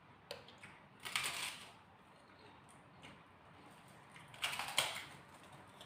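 Eating noises: a few small clicks and two short crunchy bursts, about a second in and again near the end, from eating crispy fried tilapia.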